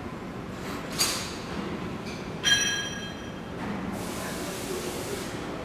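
Steady workshop background noise. A short sharp click comes about a second in, and a high steady tone with overtones lasts just over a second near the middle.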